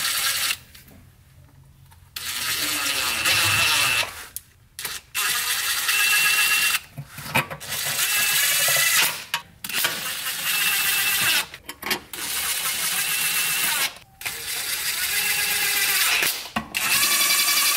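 Cordless drill with a socket driving automatic-transmission pan bolts in, whirring in a string of short runs of a second or two each, one bolt after another, with brief pauses between.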